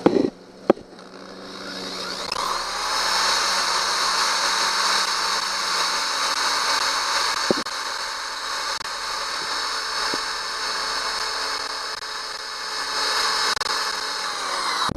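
Power drill spinning up about two seconds in and running steadily as its bit bores into a broken, rust-seized steel screw stud, cutting off right at the end. A sharp knock is heard just before it starts.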